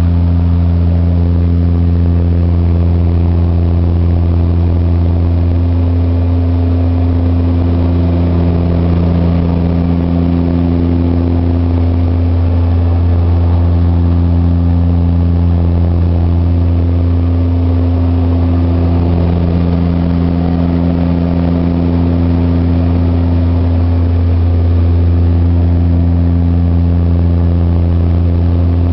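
de Havilland Canada DHC-6 Twin Otter's PT6A turboprop engines and propellers heard from inside the cabin: a loud, steady, deep drone that swells and fades every few seconds, in the climb after take-off.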